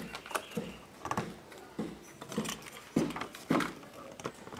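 Hard plastic toy parts of a Play-Doh Cake Making Station clicking and knocking as they are handled and fitted onto the cake base: about ten irregular taps, the loudest about three seconds in.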